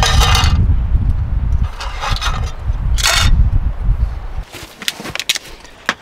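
Metal camping pots and a lid clattering and scraping in short bursts as the nesting set is stacked together, over a heavy low rumble on the microphone that stops about four seconds in.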